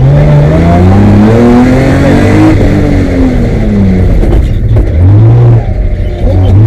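BMW M3 rally car's engine, heard loud from inside the cabin, revving up hard under acceleration for about two and a half seconds, then falling away. After a couple of short dips the revs climb again near the end.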